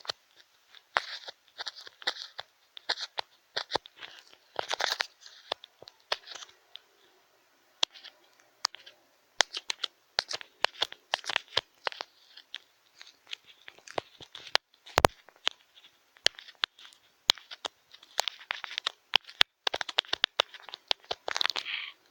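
ASMR ear cleaning: an ear-cleaning tool scraping and scratching in an ear, making irregular crackling clicks and short scratchy rustles.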